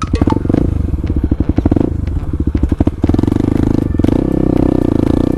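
Off-road dirt bike engine running at low revs with distinct firing pulses, then revving up to a steadier, louder run about three seconds in as it pulls across rough ground.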